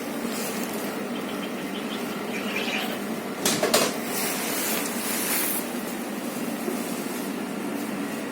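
Steady background hum of a sandwich-shop counter, with a short clatter about three and a half seconds in and a brief hiss a second or so later.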